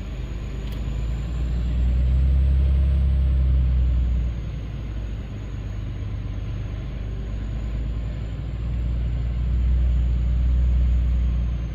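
Log truck's diesel engine running as the truck drives, a steady low rumble that swells louder twice.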